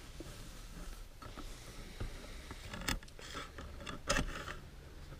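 Pliers working a metal umbrella rib against the nylon canopy: faint handling, scraping and rustling with a few sharp metallic clicks, the clearest about three and four seconds in.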